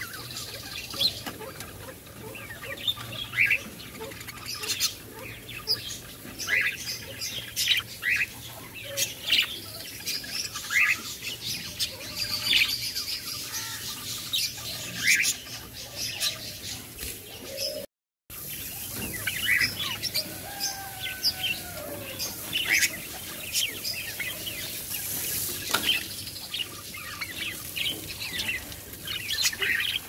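Budgerigars chirping: many short, quick chirps scattered throughout, with a few warbling gliding calls, and a brief dropout to silence about eighteen seconds in.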